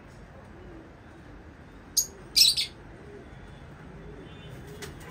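Lovebirds chirping: one sharp shrill chirp about two seconds in, then a quick burst of several shrill chirps, and a faint one near the end, over a low steady background.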